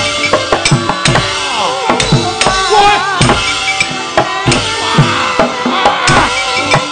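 Javanese gamelan accompaniment to wayang kulit playing at a brisk pace, with kendhang hand-drum strokes that drop in pitch and many sharp knocks from the dalang's cempala and keprak, under a wavering high melodic line.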